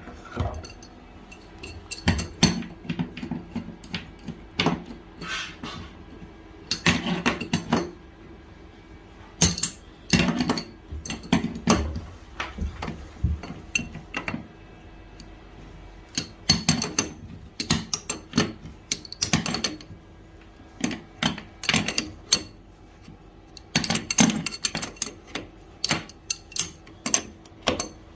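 Irregular metallic clinks, taps and knocks, singly and in quick clusters, from tools and metal plumbing fittings being handled during work on a bar mixer shower.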